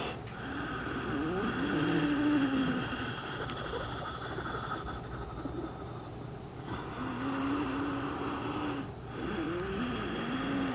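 A woman's heavy breathing with several drawn-out low vocal tones, some gliding and some held steady for a second or more, as she goes into a meditative trance.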